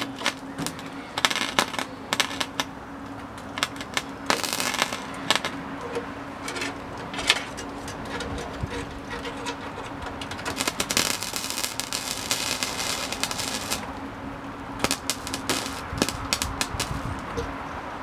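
MIG welder arc crackling and sputtering on sheet-steel patches in short stop-start bursts, with longer runs about four seconds in and again from about eleven to fourteen seconds. The welder is acting up, which the owner puts down to the wire roll running near its end. A steady low hum runs underneath.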